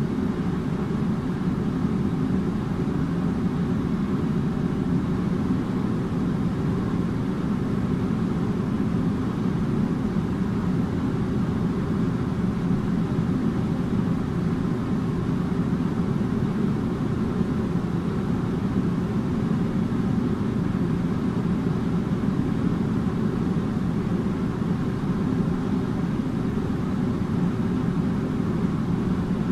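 Air conditioner running steadily, a continuous low hum and whoosh with a faint steady tone above it.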